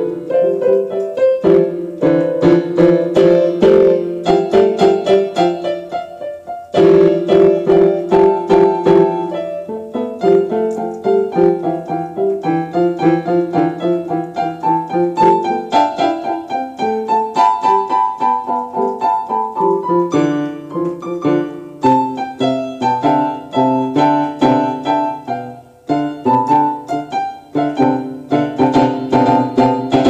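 Piano music: a steady stream of quick notes, which fades briefly twice before picking up again.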